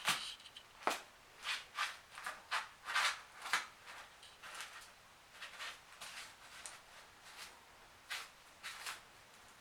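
A series of short, irregular scratchy rustles and clicks, about one or two a second, closer together in the first half and sparser later on.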